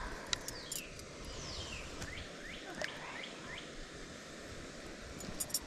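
Birds calling: a scatter of short notes that slide downward in pitch over a steady outdoor background, with a few light clicks near the end.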